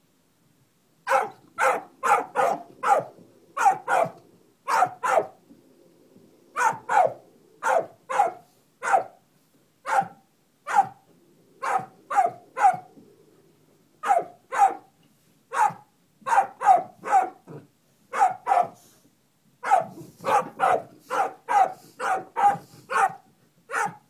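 Dog barking over and over at a young buzzard, in quick runs of two to four sharp barks with short pauses between.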